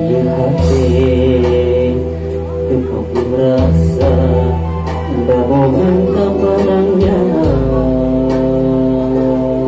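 A man singing a Sundanese song into a microphone through a sound system, over an instrumental backing with held bass notes and a light, regular beat.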